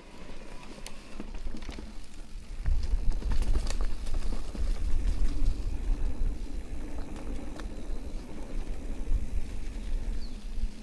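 Electric mountain bike rolling along a dirt trail: a steady low rumble that grows louder about three seconds in, with scattered clicks and rattles.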